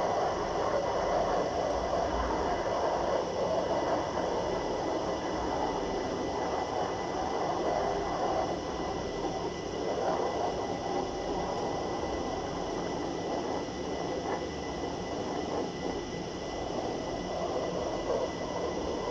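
Military jet engines running, a steady rush that swells slightly now and then.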